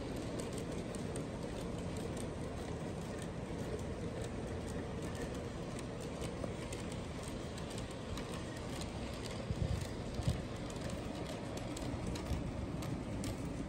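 G scale model freight train rolling along its track: a steady rumble of wheels on the rails with faint fine clicking. A couple of brief low thumps come about ten seconds in.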